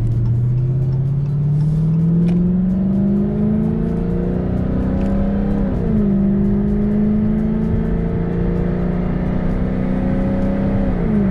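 Dodge Hellcat's supercharged 6.2-litre HEMI V8 under acceleration, its engine note rising steadily for about four seconds and then holding high, with a brief dip in pitch about six seconds in and another near the end.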